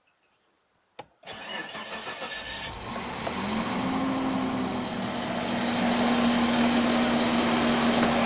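Suzuki Vitara engine started from cold: a click about a second in, a brief crank, then it catches and runs at a steady idle that grows gradually louder.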